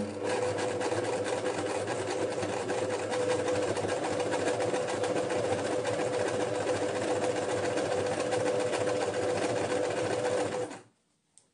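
Household electric sewing machine with a twin needle, running steadily at speed on an overlock-type stretch stitch through slippery knit fabric, with a constant motor hum; it stops shortly before the end.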